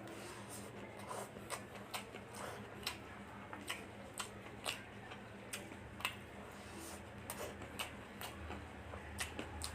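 Close-up eating sounds of a mouthful of chicken fried rice: chewing and lip smacking, a string of short, irregular wet clicks about one or two a second.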